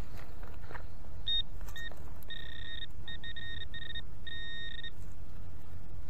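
Metal detector beeping: from about a second in, a run of short and longer beeps at one steady high pitch, signalling metal near the coil. A low rumble runs underneath.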